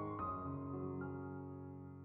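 Background music: soft piano notes, each held and slowly fading.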